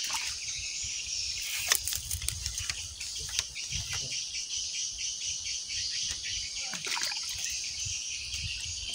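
Steady high-pitched chirring of insects, with a low rumble and a few scattered sharp clicks.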